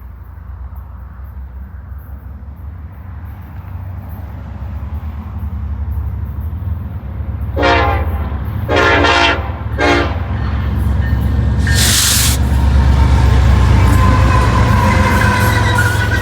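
Loaded BNSF coal train led by an EMD SD70ACe diesel-electric locomotive approaching, its deep rumble growing steadily louder. The locomotive's horn sounds three blasts about halfway through, the middle one longest, followed by a brief loud rush of noise as the train draws level.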